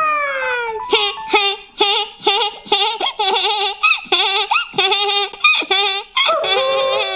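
Cartoon kitten's high-pitched voice chattering in a quick string of short, wavering meow-like syllables, two to three a second, with no real words, after a falling cry at the start.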